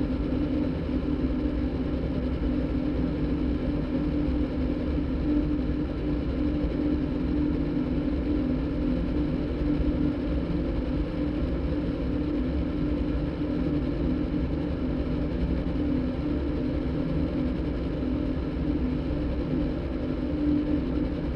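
Synthesized soundtrack drone made by cross-synthesizing a motorbike engine recording with a đàn bầu (Vietnamese monochord) concert recording: one steady held low tone over an even engine-like rumble.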